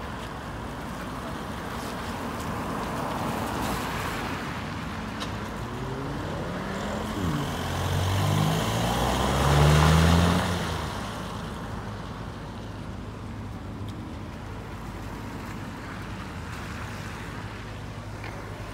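VW Golf's engine revving, rising in pitch as the car comes past close, its tyres hissing on the wet tarmac; loudest about ten seconds in, then fading to a steady background traffic rumble.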